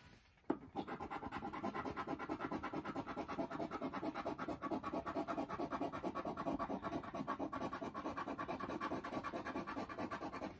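A round scratcher tool rubbed rapidly back and forth over a $5 Pennsylvania Lottery Power Shot scratch-off ticket, scraping off the coating in quick, even strokes. It starts with a tap about half a second in and stops just before the end.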